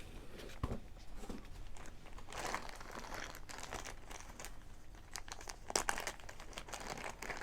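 Packaging being unwrapped by hand, crinkling and rustling in irregular clusters of crackles.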